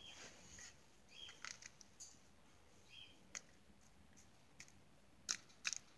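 A cockatiel cracking seeds at a plastic seed cup: a string of sharp, irregular clicks and crunches from its beak, a few seconds apart, with the loudest pair near the end.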